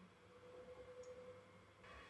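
ZimaCube Pro NAS running at idle: a faint steady hum with one tone from its fans and hard drives. Near the end a higher whirring sets in abruptly.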